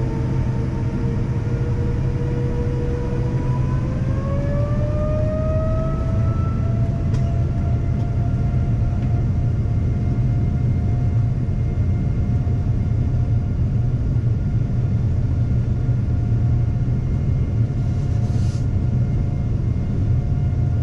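Boeing 787-9 jet engines heard inside the cabin over a heavy, steady rumble, their whine climbing in pitch about four seconds in and then holding steady, as thrust comes up for takeoff.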